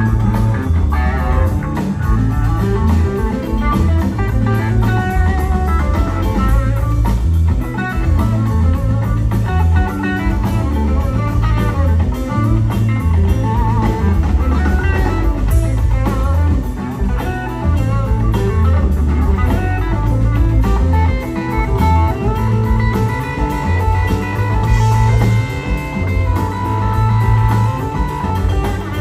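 Live rock band playing an instrumental blues-rock passage: electric guitars leading over bass and drums, with held lead-guitar notes in the second half.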